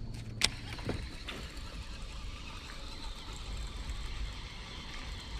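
A cast and retrieve with a casting rod: one sharp click about half a second in as the reel engages, then a steady low rumble with faint churning as the buzzbait is reeled back across the surface.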